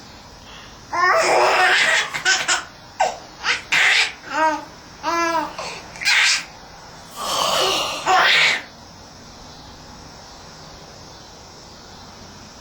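A baby laughing in several loud bursts, with rhythmic ha-ha pulses in the middle, stopping about nine seconds in.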